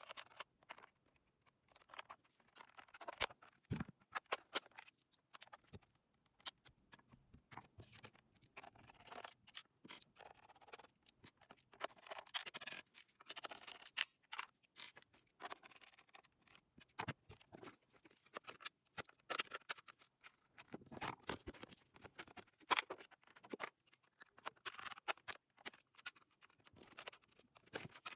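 Faint handling noises from work on a small plastic portable radio: irregular sharp clicks, taps and short scratches, as of fingers and small tools on the casing and its parts.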